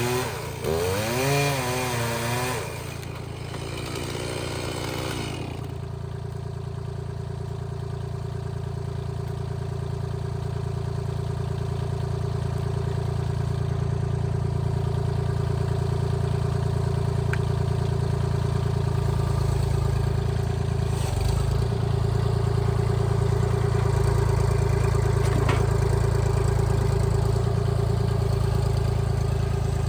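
Stihl MS 391 two-stroke chainsaw revved up and down a few times, then dropping back to a steady idle about five seconds in.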